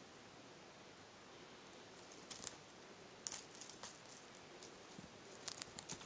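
Faint rustling and scratching from a Maine Coon kitten pouncing on a teaser stick's ribbons on a cloth bedspread. It comes as short clusters of soft ticks, starting about two seconds in, over a low hiss.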